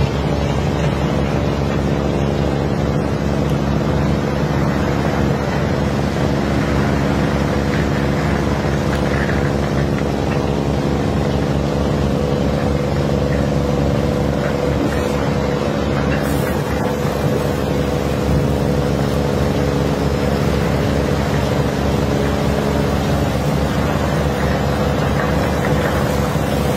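Heavy diesel engine running steadily at constant speed: a low, even hum with a fast pulse.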